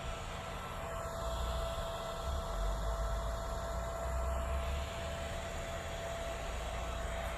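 Radio static played through a Mercedes-Benz car amplifier and speakers: a steady hiss with a faint thin whistle tone running through it, the tuner off-station.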